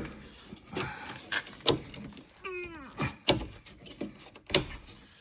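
Clicks and knocks of a car's chrome trim strip being worked and pried loose from its plastic holders on the fender, with a brief squeak that falls in pitch about halfway through.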